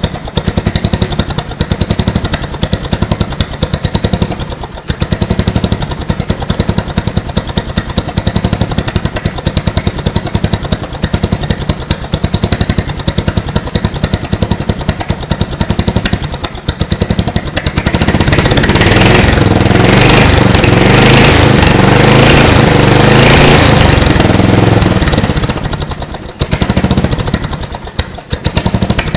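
Lowered Murray riding lawn mower's engine idling at low speed with an uneven, hit-and-miss beat. About eighteen seconds in it speeds up and runs louder for about eight seconds, then drops back to the slow idle: the surging at idle that the owner puts down to a dirty carburetor.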